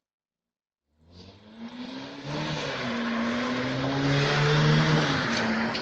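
A motor vehicle's engine passing close by. It comes in about a second in and grows louder, its pitch wavering and rising slightly as it nears, then it falls away near the end.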